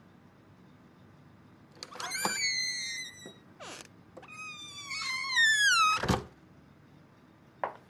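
A door creaking on its hinges: a squeak, then a longer creak that falls in pitch and ends in a heavy thud as the door shuts. A light click follows near the end.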